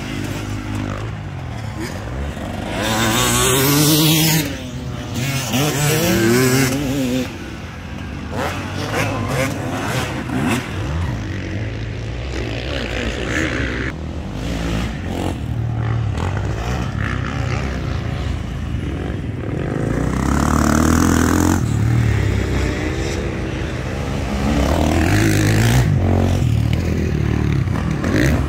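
Motocross dirt bike engines racing round the track, revving up and falling back again and again as the bikes accelerate and shift through the corner.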